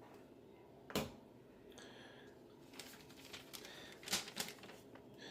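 Freshly sharpened kitchen knife cutting through a sheet of paper in a paper test: a crisp rustling slice, with a sharp click about a second in and two more clicks a little after four seconds.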